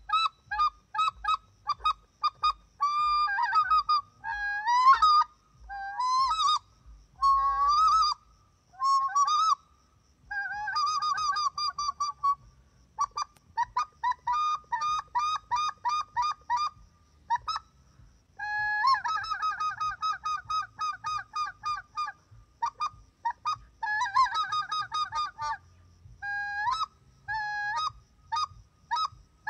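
Hand-blown acrylic polycarbonate waterfowl call sounding runs of short, honking quacks, several a second, some notes breaking sharply upward in pitch, in phrases separated by brief pauses.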